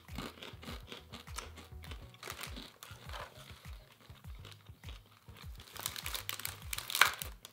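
Crisp gluten-free crispbread crackers being bitten and chewed, with a plastic snack packet crinkling as it is handled, over background music. The loudest crackle comes near the end.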